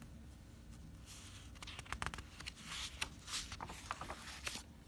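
Pages of a picture book being turned by hand: a run of soft paper rustles and flaps, starting about a second in and stopping shortly before the end.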